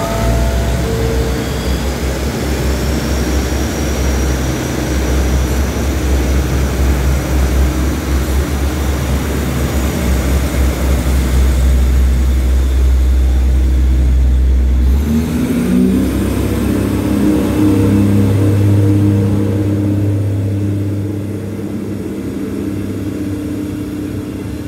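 Special express passenger train pulling out of the station, its coaches rolling past along the platform with a steady low drone. About 15 seconds in the sound shifts to a higher hum with several steady tones as the last cars pass, then eases off as the train draws away.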